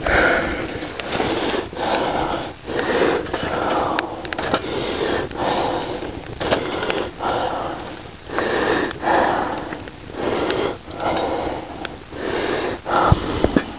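A man breathing hard, in and out, in a steady rhythm of roughly one breath sound a second.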